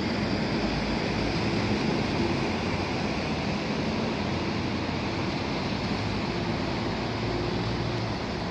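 Fast-flowing river swollen by heavy rainfall, its floodwater rushing with a steady, unbroken roar of water.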